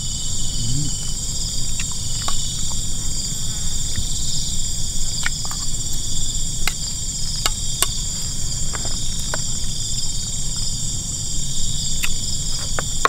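A steady, high-pitched insect chorus, with scattered light clicks of a spoon against a plate.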